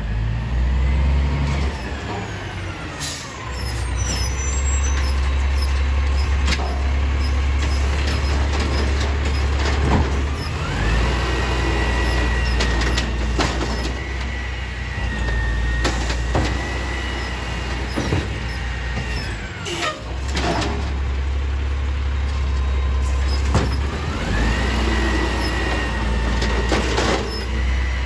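Automated side-loader garbage truck running with a heavy low rumble while its arm lifts and dumps carts. Twice the engine speeds up with a rising hydraulic whine that holds steady for several seconds, then falls away, with a few clunks from the cart and arm.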